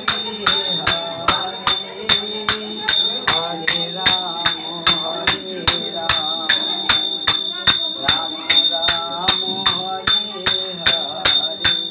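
A woman chanting a devotional kirtan, accompanied by a ringing metal instrument struck in a steady beat of about three strokes a second.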